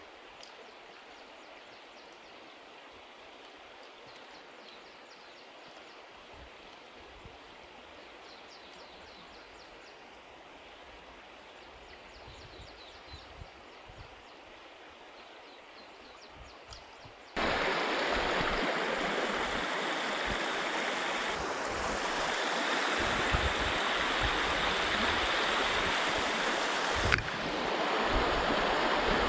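River water flowing over rocks: faint and steady at first, then, a little past halfway, suddenly much louder as close rushing water flows between stepping stones.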